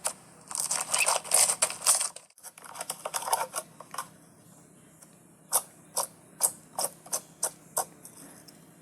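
Slime being handled and squished: dense sticky crackling for the first two seconds, a softer squish, then a run of separate sharp clicks, two or three a second, in the second half.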